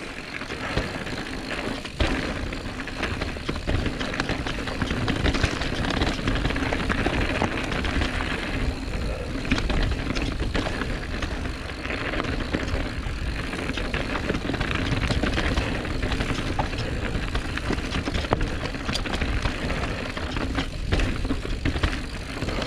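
Calibre Sentry mountain bike ridden at speed on a dirt singletrack descent: a steady rush of tyre noise and wind buffeting on the microphone, with the bike's chain and frame clattering over bumps throughout.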